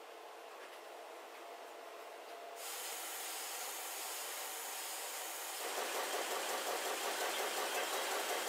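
Banknote printing and sheet-handling machinery running. A faint steady hiss steps up about a third of the way in to a louder machine noise, then about two-thirds through to a louder, fast fluttering rattle as the sheets feed through.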